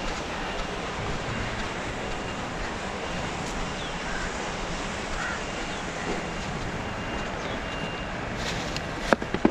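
Steady outdoor wind noise on the microphone. Near the end come two or three sharp plastic clicks as a plastic tackle box is handled.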